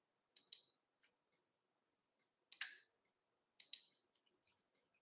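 Near silence with a few faint, sharp clicks: a pair, a single one, then another pair.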